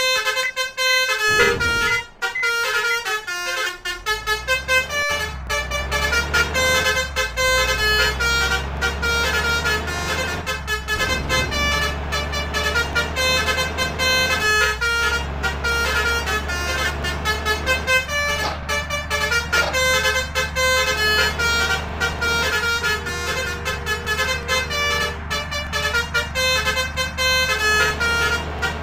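Bus 'telolet' horns, Basuri multi-trumpet air horns, playing a continuous melody of stepping honked notes. From about five seconds in, the low steady drone of a bus engine runs underneath.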